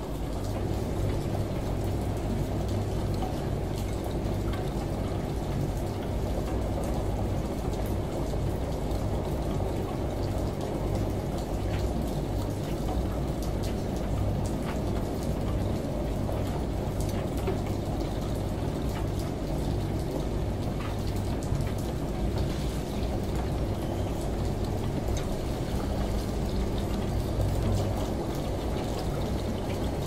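Front-loading washing machine in its wash cycle, the drum turning wet laundry: water sloshing over a steady low motor hum, with small ticks and splashes.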